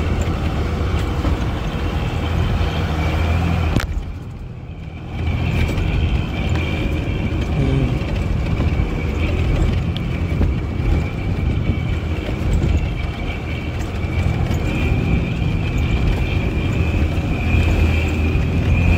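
Bus engine running on a rough mountain road, a steady low drone that drops briefly about four seconds in.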